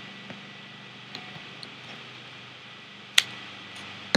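Small hard clicks and taps from handling a resin ball-jointed doll and its parts: a few light ticks, then two sharp clicks about three and four seconds in, over a faint steady hum.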